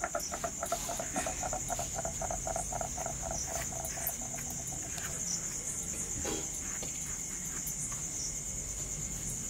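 Crickets trilling steadily, with a frog calling in a quick run of short pulses during the first half.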